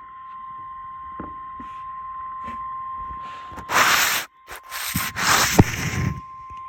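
Emergency alert tone: a single steady, high-pitched tone held for several seconds. Two loud bursts of rushing noise break over it about four and five seconds in.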